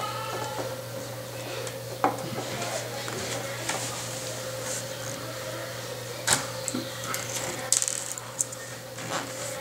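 Laptop parts being handled during reassembly: scattered sharp clicks and taps of small plastic and metal pieces, a few in quick succession near the end, over a steady hum.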